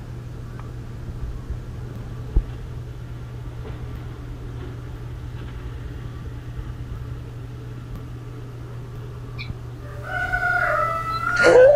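A rooster crowing once near the end, one long call over a steady low hum.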